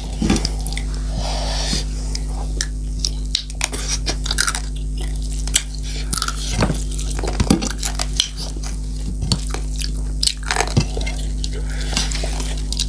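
Close-miked chewing and crunching of food, with many short, irregular crunches and mouth clicks over a steady low hum.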